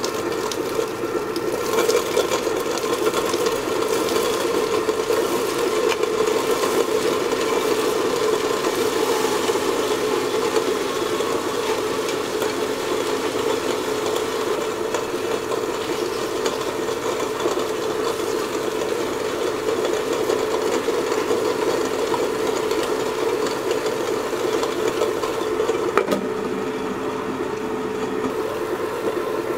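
Stone melanger running steadily: its motor hums while the stone rollers roll and rattle round the drum, grinding cocoa nibs into liquid chocolate. A single sharp click comes near the end, after which the sound is slightly duller.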